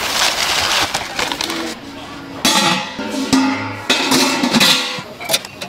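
Dry rice pouring from a bag into a large aluminium pot of water, a rushing hiss that stops about a second and a half in. Then a metal rice-cooker lid is handled, with a few sharp clanks near the end. Background music is loudest in the middle.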